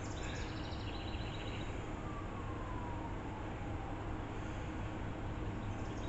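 Steady outdoor city ambience: a distant traffic rumble and hum, with a faint whine sliding slowly down in pitch through the middle.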